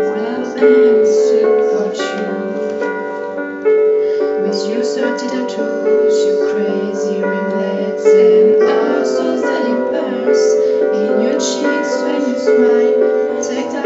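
Female voices singing a slow pop ballad over piano accompaniment.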